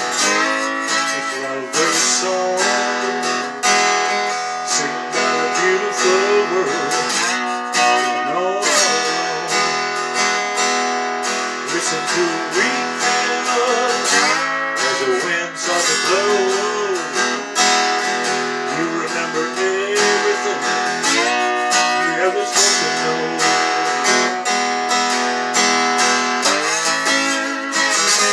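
Acoustic guitar instrumental break: steady strummed chords, with a melodic lead line that glides and bends over them.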